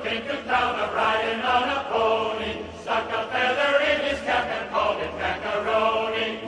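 Music with a group of voices singing in a chant-like style.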